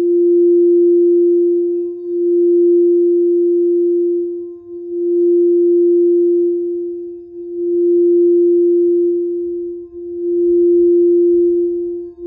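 Frosted quartz crystal singing bowl sung by rubbing a wooden mallet around its rim: one sustained ringing tone that swells and dips about every two and a half seconds without stopping.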